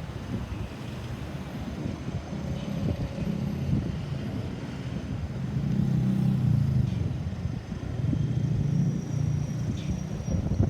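Road vehicle engine with a low rumble, growing louder about six seconds in as it passes close, over general traffic noise.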